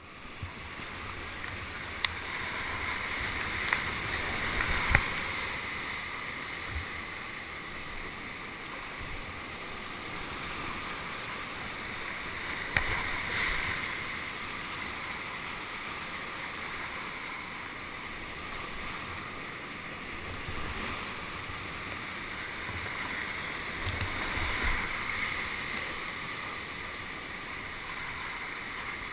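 Rushing whitewater of a mountain creek heard from a kayak: a steady hiss of moving water with a few sharp knocks and splashes, the loudest about five seconds in and again near thirteen seconds.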